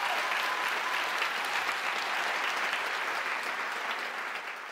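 Audience applauding at the end of a talk, a dense steady clapping that fades out near the end.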